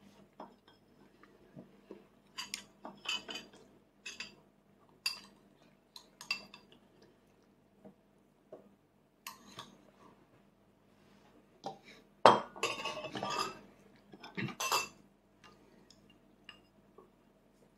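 A small metal fork clinking and scraping against a dish as a toddler scoops rice, in scattered taps. The loudest run of clinks comes about twelve seconds in.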